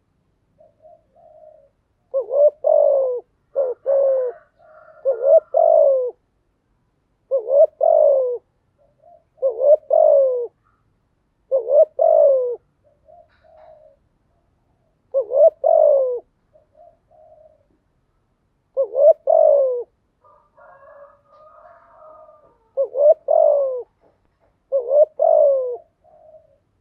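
Spotted dove cooing: about nine low coo phrases spaced roughly two seconds apart, with fainter short notes between them.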